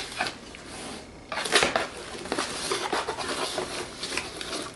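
A knife slitting the tape on a cardboard box, then the cardboard flaps pulled open and handled, with irregular scrapes, clicks and rustles and a louder stretch of scraping about a second and a half in.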